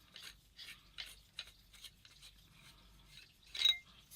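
A paintball marker being handled as its barrel is taken off: faint small rubs and clicks, and one louder metallic clink about three and a half seconds in.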